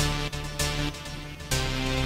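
Self-produced electronic beat with sustained synth tones. It thins out and drops in level through the middle, then comes back in full about one and a half seconds in.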